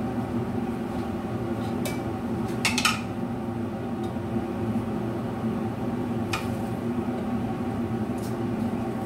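Steady mechanical hum of a kitchen appliance, with a few light clinks of kitchenware: a pair about two to three seconds in and one more past the six-second mark.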